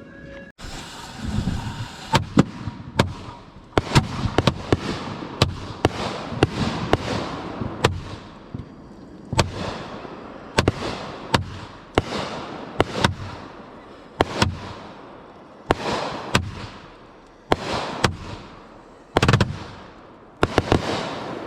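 Aerial firework shells fired in quick succession from mortar tubes, with sharp bangs about once a second, many followed by a deep boom and a fading crackle.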